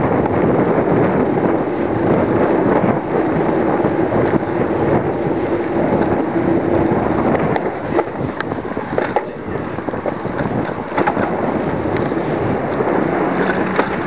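Heavy wind noise buffeting the microphone of a camera riding on a moving bicycle, with a few sharp knocks and rattles in the second half.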